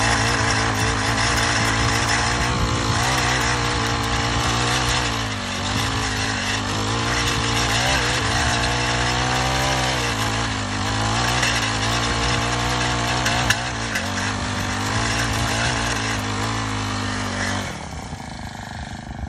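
Honda FG110 mini tiller's 25 cc four-stroke engine running at high throttle while its tines dig into soil, the engine speed dipping and wavering under the load. Near the end it drops back to a lower, quieter speed.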